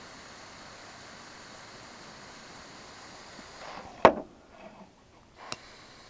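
Steady hiss of a butane torch with a ceramic heating tip, which stops about four seconds in with a sharp click; a second, smaller click comes about a second and a half later.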